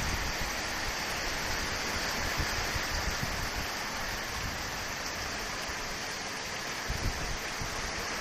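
Typhoon wind blowing as a steady hiss, with occasional gusts buffeting the microphone in low rumbles.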